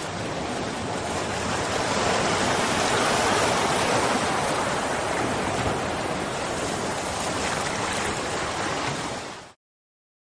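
Steady rushing, surf-like noise from an edited-in intro sound effect. It starts suddenly, swells a little over the first few seconds and cuts off abruptly near the end.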